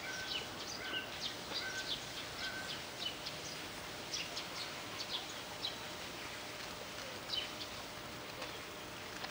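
Small birds chirping busily in short, sharp high chirps over a steady outdoor hiss, with a short note repeated about twice a second for the first two or three seconds; the chirping thins out after about six seconds.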